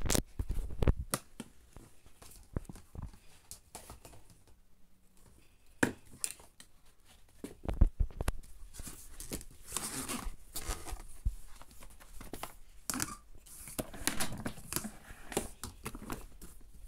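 Handling noise: irregular clicks, knocks and rustling from the phone being moved about a Numatic vacuum cleaner and a hand touching its plastic body. The vacuum's motor is not running.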